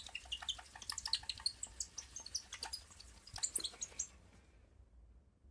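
A polishing cloth rubbing hard over a glossy carbon-fibre panel, giving a quick run of short high squeaks and small clicks that stops about four seconds in.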